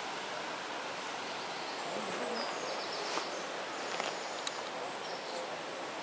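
Steady rush of running water heard through forest, with a few short high-pitched chirps and a couple of sharp clicks midway.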